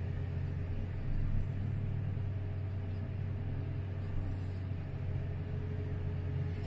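Komatsu PC3000 mining excavator's engine and hydraulics running, heard from inside the cab as a steady low drone with a faint steady whine above it.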